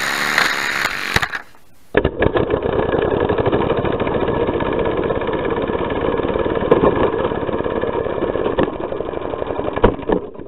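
Compressed-air piston engine of an Air Zero Sega Racers toy car running flat out, heard from its onboard camera as a dense, fast mechanical chatter that runs steadily and stops at the very end. It is preceded in the first second and a half by a brief louder rush of noise.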